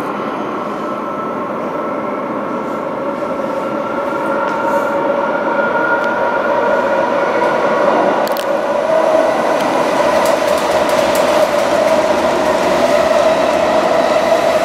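An out-of-service MTR metro train approaching and running through the underground station behind the platform screen doors: the rumble of the train, with a steady whine of several tones, grows louder throughout.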